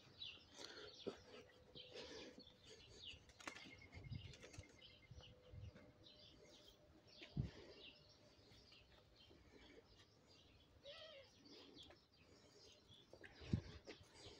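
Faint chirps and twitters of small birds, with two short low thumps, one about halfway and one near the end.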